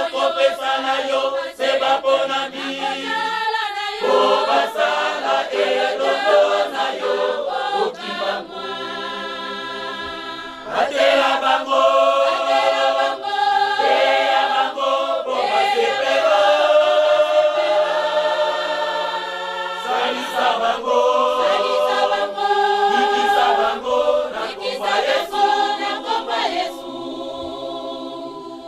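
Church choir, mostly women's voices, singing a hymn in harmony with no instruments, in long held phrases.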